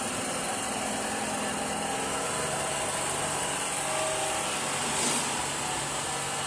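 A steady machine hum with a constant hiss over it, with a slight brief swell about five seconds in.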